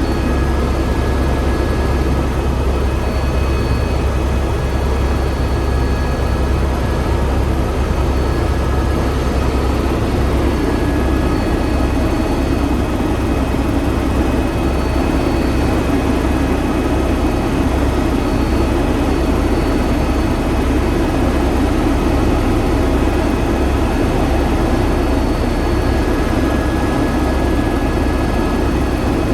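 Helicopter in flight heard from inside the cabin: a steady, loud engine and rotor drone with a strong deep hum and a few faint steady high tones.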